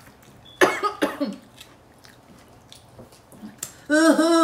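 A woman coughs hard a couple of times about half a second in, a reaction to spicy-hot food. Near the end she lets out a drawn-out, wavering wordless 'ooh'.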